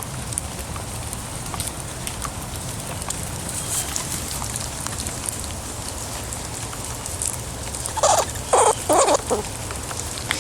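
Squirrel squeaking about four times in quick succession near the end, while provoked by being poked and petted. Rain patters steadily throughout.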